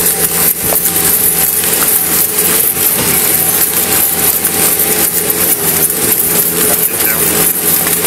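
Skid-steer loader engine running steadily, overlaid by many irregular scuffs and knocks of a body-worn camera rubbing as its wearer moves over dirt.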